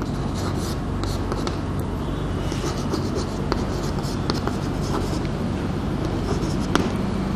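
Chalk writing on a blackboard: short scratches and light taps as the letters are formed, over a steady low hum.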